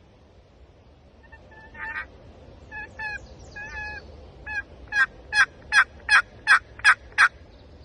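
Turkey yelping: a few soft, scattered notes, then a run of about seven sharp, evenly spaced yelps that grow louder.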